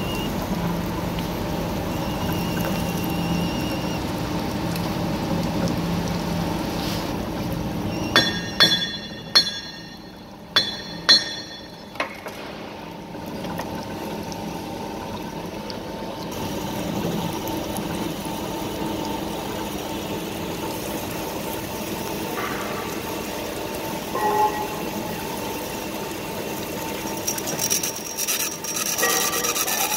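Uzay 420 band saw cutting through a thick steel pipe, its motor running steadily with coolant pouring over the blade. A handful of sharp, ringing clinks come about eight to twelve seconds in.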